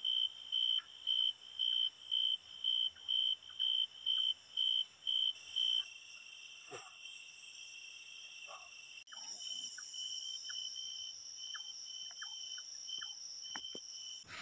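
Night insects, chiefly a cricket chirping in even pulses about twice a second, which turns into a continuous trill about six seconds in. Higher, steady insect buzzing grows louder about nine seconds in, with a few faint clicks near the end.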